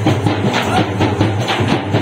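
Fast, steady drumming, many strikes a second in an even rhythm.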